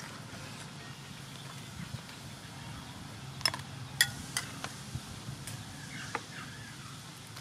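Metal ladle clinking four or five times with a short ringing tone against the metal soup pot as soup is ladled out, over a steady low hum.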